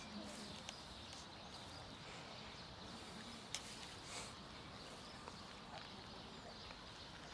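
Faint sounds of cats eating chunks of wet cat food from plastic containers, with a few small clicks and smacks, one sharper click about three and a half seconds in, over a low outdoor hiss.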